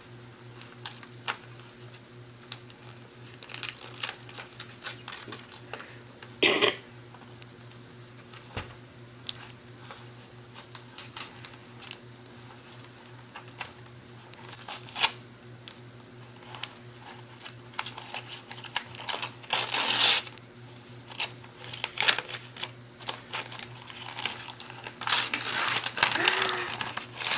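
Wrapping paper being torn and crumpled as a present is unwrapped, in irregular rustles and short rips, louder about six seconds in, again about twenty seconds in, and in a longer stretch of tearing near the end. A faint steady hum lies underneath.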